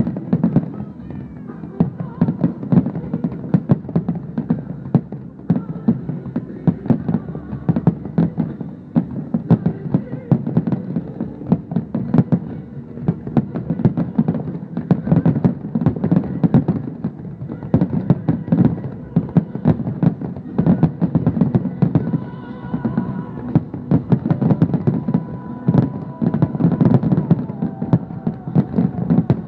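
Fireworks display: aerial shells bursting in a rapid, continuous barrage of booms and crackles.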